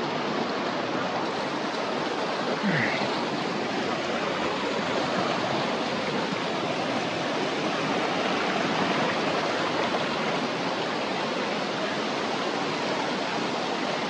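Fast mountain stream rushing over rocks and boulders: a steady, even rush of white water.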